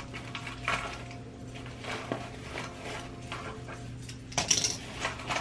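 Light clicks and clatter of small hard objects being handled by hand, with a louder rattle about four and a half seconds in, over a steady low hum.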